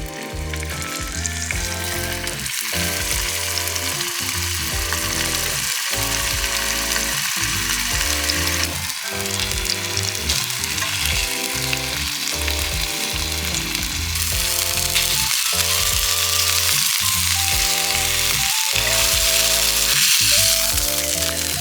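Food frying in hot oil in a pan, with a steady, continuous sizzle. Background music with a regular beat plays over it.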